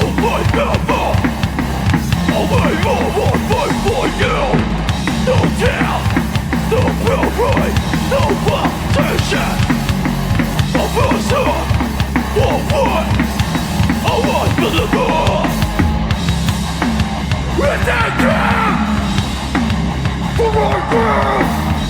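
Hardcore band playing live, loud, with a driving drum kit, through an instrumental stretch of the song before the vocals come in.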